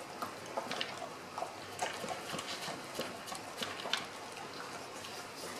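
Dogs moving about and working at a homemade puzzle toy: scattered light clicks and knocks of claws, paws and the toy.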